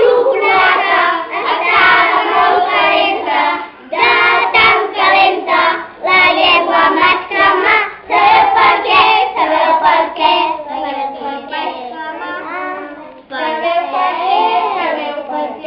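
A group of young children singing together, loud, in phrases of about two seconds with short breaks between them.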